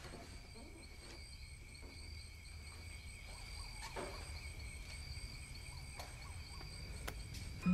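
Quiet ambience: a steady high-pitched trill with a repeating chirp pattern over a low rumble, and a faint soft knock about four seconds in.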